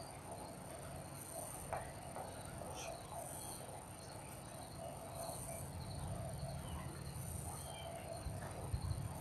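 Faint outdoor ambience of insects chirping, with high-pitched pulses about every two seconds, and a few short bird chirps. Underneath is a low rumble with a few soft knocks near the end.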